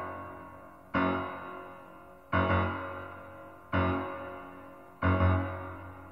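Piano music: the same low chord struck about every second and a half, each one left to ring and fade before the next.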